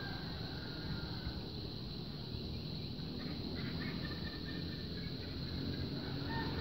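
A few faint, short calls from fowl, over a steady low rumble.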